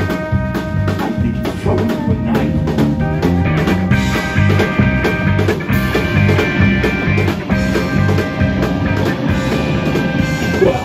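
Live band playing an instrumental stretch with no vocals: electric guitar, drum kit keeping a steady beat, upright bass and pedal steel guitar.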